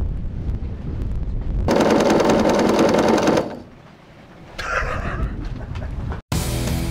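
Small electric diaphragm pump running with a loud, rapid, even clatter for under two seconds, then stopping abruptly.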